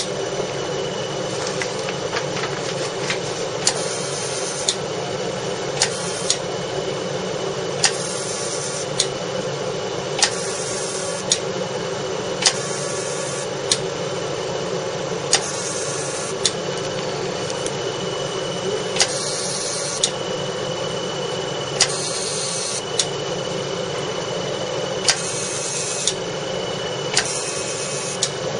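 CO2 fractional laser unit running with a steady machine hum. About every one to two seconds a sharp click is followed by a short high hiss as the handpiece fires.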